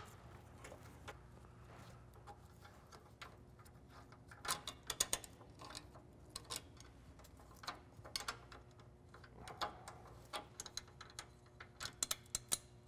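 Faint clicking of a ratchet in short runs, with light metal clinks, as 12 mm bolts holding a frame bracket are loosened, over a faint steady hum.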